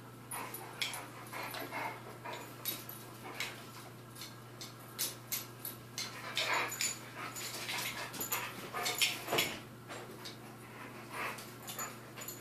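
Two huskies play-fighting: a few short dog vocal noises, the loudest about halfway and two-thirds of the way through, among scattered clicks and scuffs of claws and paws on a tiled floor.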